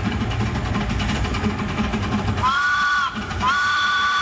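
A Crown-built 2 ft gauge locomotive running toward the listener with a low rumble, then sounding its two-note chime whistle: a short blast about two and a half seconds in, then a longer blast that is still going at the end.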